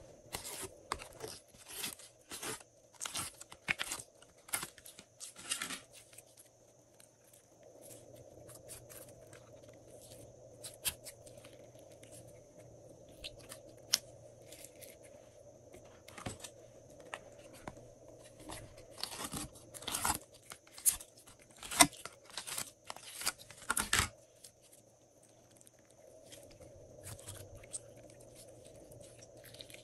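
Hands squeezing and stretching glossy slime: sticky crackles and small pops in bursts, busiest in the first six seconds and again from about 16 to 24 seconds, quieter in between.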